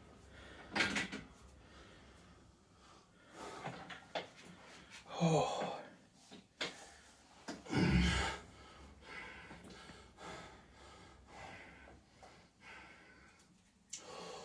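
A man's effortful breaths and grunts through a set of heavy barbell bench presses, one every couple of seconds with the reps, the strongest about eight seconds in. A few faint knocks from the bar and bench come between them.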